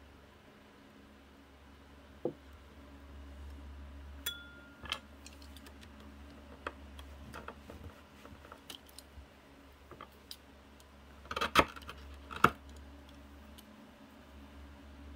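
Hand-work sounds of cutting leather strips with a utility knife on a wooden bench: scattered light clicks, taps and scrapes, a brief ringing tone about four seconds in, and two sharp knocks near the end, over a faint steady low hum.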